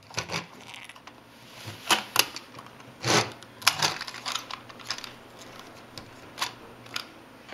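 Plastic toy truck cab being handled and fiddled with: scattered, irregular clicks and light knocks of plastic parts, the loudest about three seconds in.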